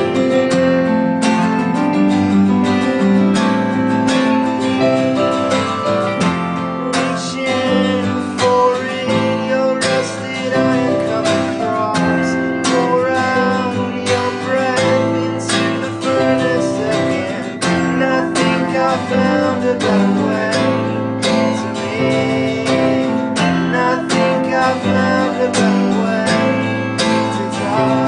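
A band playing a song: strummed acoustic guitar with electric guitar and keyboard, in a steady rhythm of repeated strums.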